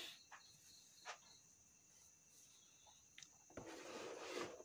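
Near silence: faint cricket chirping in the background for about the first second, a few soft clicks, and a soft rustle of handling near the end as a hand touches the clear plastic display case.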